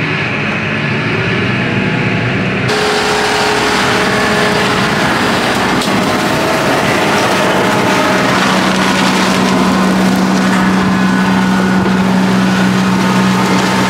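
John Deere tractor engine running with a rear-mounted Maschio flail mower cutting long grass and ragwort. The sound is muffled at first, heard inside the tractor cab, then switches to the full open-air sound of the tractor and mower. A steady low hum grows strong about halfway through.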